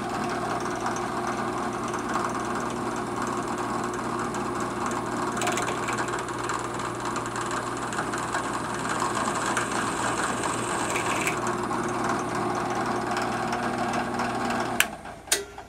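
Drill press running steadily while a 19/64 drill cuts a very shallow clearance pilot hole into a shotgun barrel. Near the end the running stops, followed by two sharp clicks.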